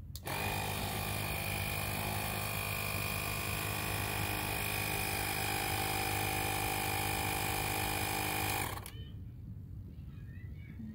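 Bullseye Pro portable tire inflator running steadily, its compressor pumping air into a car tire with a steady hum, then stopping suddenly about two seconds before the end.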